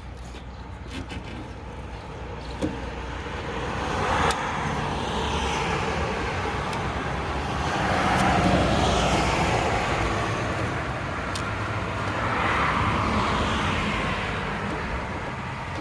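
Road traffic passing: several cars go by one after another, each a swell of tyre and engine noise that builds and fades, over a steady low rumble.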